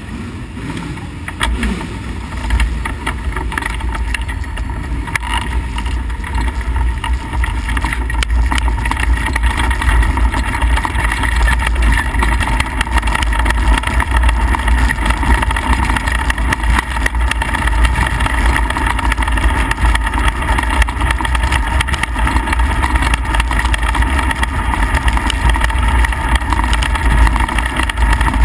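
Midget race car engine running, heard from the onboard camera in the cockpit. It grows louder over the first several seconds, then stays loud and steady at speed.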